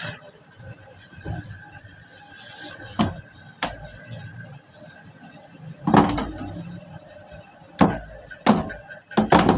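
Several separate knocks and clatters of household things being handled and moved around, spaced a second or two apart with a cluster near the end.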